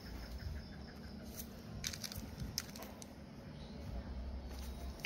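Grass and dry leaves rustling and crackling underfoot, with a few sharper crackles between about one and a half and three seconds in, over a low rumble.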